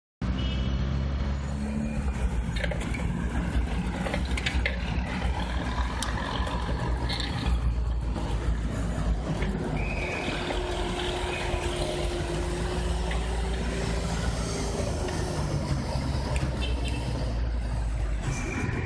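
City street traffic: cars and vans driving past, with a steady low rumble throughout. About ten seconds in, a steady humming tone stands out from the traffic for some five seconds.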